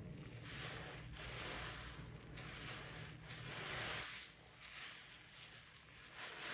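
Wet porous sponge full of thick suds being squeezed and worked by a gloved hand in soapy water: soft hissing squishes of foam and water that rise and fall in several slow swells.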